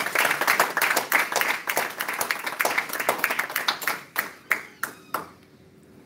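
A small audience clapping: dense applause that thins out to a few scattered claps and stops about five seconds in.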